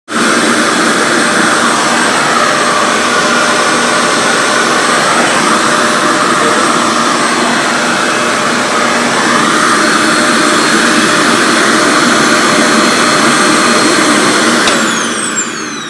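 RevAir reverse-air blow dryer running: a loud, steady vacuum-like rush of suction through its hose. It is switched off about a second before the end, its motor whine falling in pitch as it spins down.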